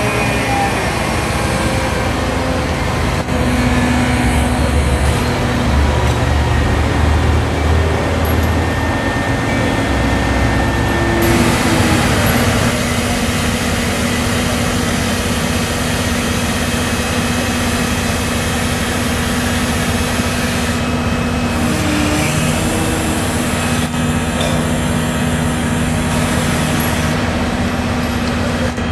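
Liebherr LTM 1070-4.2 mobile crane running steadily as it works its hoist winch, engine and hydraulics under load. The engine note shifts about 4 seconds in and again about 11 seconds in.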